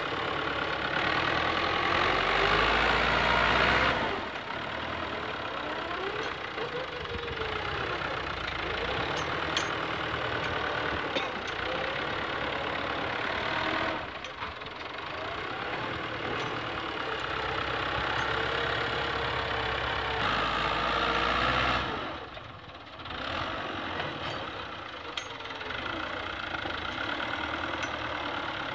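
Fiat 640 tractor's diesel engine working under load as it pushes sand with its front blade. It gets louder for a few seconds at a time and changes level abruptly several times.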